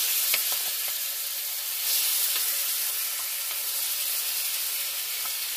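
Seasoned chicken pieces sizzling hard as they hit hot oil and curry powder in a pot, a steady loud hiss, with a wooden spoon stirring them.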